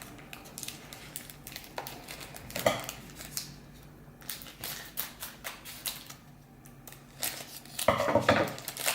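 Crinkling and clicking of a trading card pack being opened and its cards handled: a string of short crinkles and taps, louder about two and a half seconds in and again near the end.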